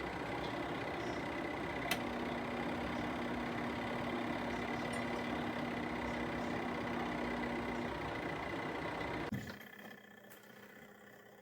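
Small portable twin-tub washing machine running with a steady motor hum and a click about two seconds in; the sound cuts off suddenly about nine seconds in.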